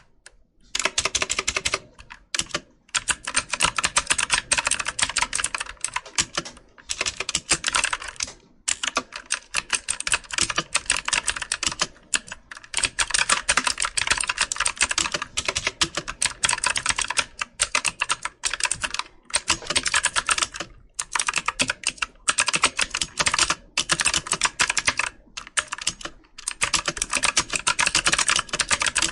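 Computer keyboard being typed on: quick runs of key clicks and taps, broken every few seconds by short pauses.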